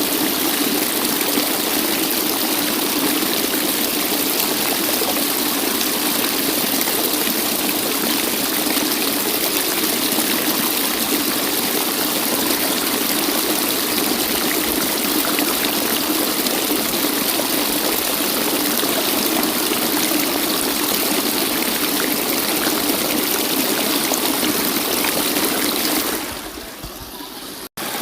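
Waterfall rushing steadily. Near the end the sound dips, cuts out for an instant, then carries on quieter.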